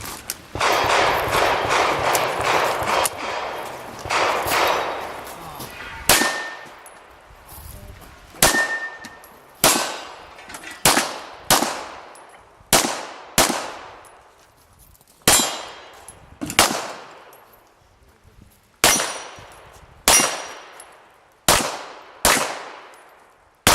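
Pistol shots fired singly at roughly one-second intervals, each followed by a decaying echo; after a couple of them comes the brief ring of a steel target being hit. The first few seconds hold a steady noisy rush before the shooting starts.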